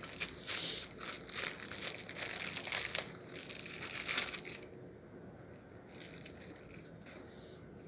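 Close crinkling and rustling handling noise as small plastic nebulizer parts are worked by hand near the microphone: dense crackling for about four and a half seconds, then fainter with a few scattered crackles.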